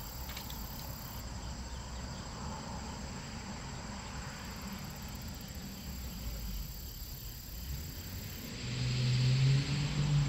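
Steady outdoor background of insects chirping over a low traffic hum, with no rifle shots. About eight and a half seconds in, a man's voice calls out loudly in one long, drawn-out note.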